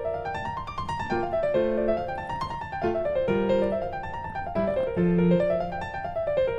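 Background piano music: quick runs of notes rising and falling, over low held bass notes.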